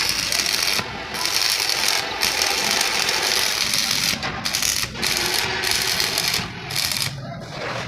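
Stick welding arc crackling steadily, broken off briefly several times and dying away near the end.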